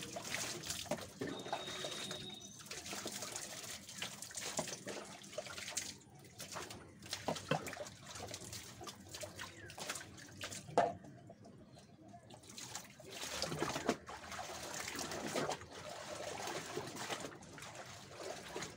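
Water poured from a plastic mug over long hair, splashing and running down into a plastic tub of water, in several pours with short quieter pauses between. Near the end, water streams from the wrung-out hair back into the tub.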